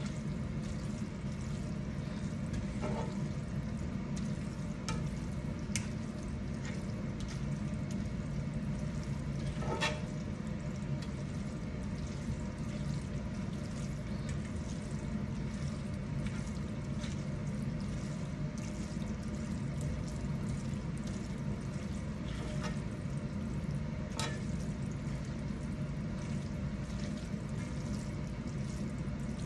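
Pasta in a creamy cheese sauce sizzling in a skillet as a silicone spatula stirs and turns it, with a few light scrapes and taps of the spatula on the pan over a steady low hum.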